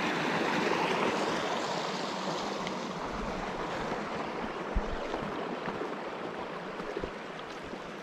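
Rushing water of a mountain stream, a steady rush that slowly grows fainter. A low thump about five seconds in, and a smaller one near seven seconds.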